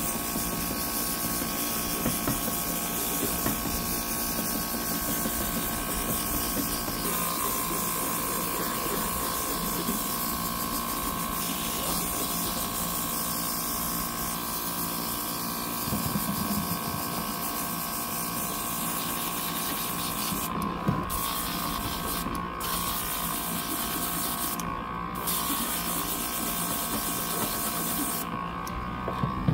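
Airbrush spraying a light, dry mist coat of paint: a steady hiss of air and paint over the constant hum of its compressor motor. In the second half the hiss cuts out briefly a few times as the trigger is let off, while the motor hum runs on.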